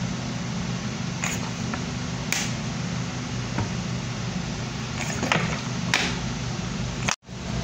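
A steady low mechanical hum with an even hiss, broken by a few faint, irregular clicks. The sound cuts out abruptly for an instant near the end.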